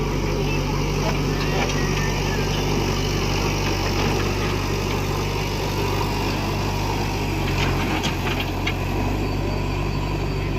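Heavy diesel engine running steadily at a constant speed. Its note shifts slightly about seven and a half seconds in, with a few short clicks or knocks soon after.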